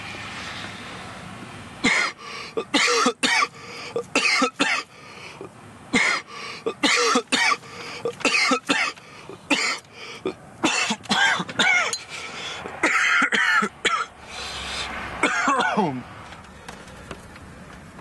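A man coughing hard from the smoke of a joint, a long run of harsh, irregular coughs starting about two seconds in and easing off near the end.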